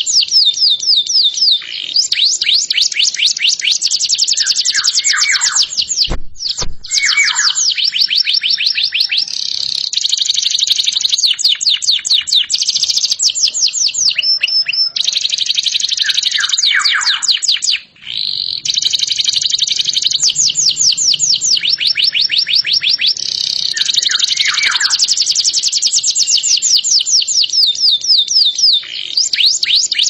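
Domestic canary singing a long, continuous song of fast, high-pitched trills and rolls, broken now and then by notes sweeping downward and a brief pause about two thirds of the way through.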